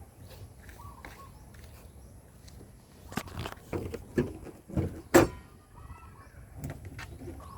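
A few clunks and clicks from the Mitsubishi Xpander's hood being released and lifted, the loudest knock about five seconds in.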